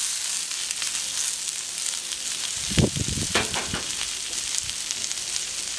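Sliced red onions sizzling steadily on a steel gas plancha heated to about 200 °C. A few dull knocks come about three seconds in.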